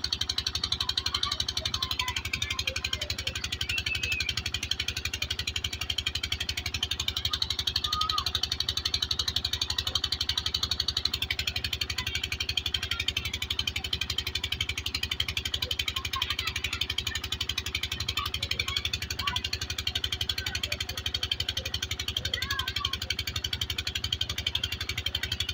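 Engine-driven irrigation water pump running steadily with a rapid, even beat, while its outlet pipe gushes a heavy stream of water into a concrete basin.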